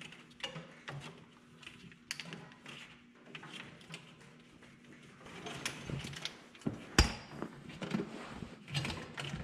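Hands routing a wiring harness through a track loader's engine compartment: scattered small clicks, taps and rattles of wire and plastic against metal, with one sharper knock about seven seconds in.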